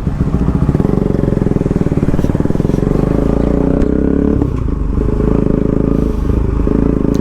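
Motorcycle engine pulling away and accelerating, its note climbing, with two brief breaks in the note about four and a half and six seconds in.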